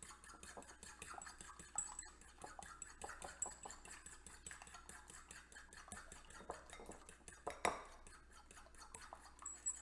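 A fork beating eggs in a bowl: rapid, light clicks of the fork against the bowl, with one louder knock about three-quarters of the way through.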